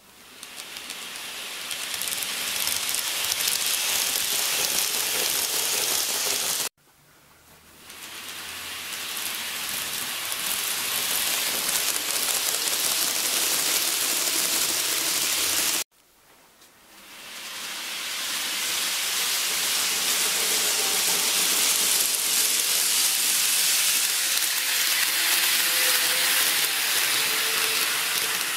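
TOMIX N-gauge JR 485-3000 series six-car model train running along its track: a steady rushing hiss of its wheels on the rails that builds up from quiet as it gets going. The sound cuts off suddenly twice and builds up again each time.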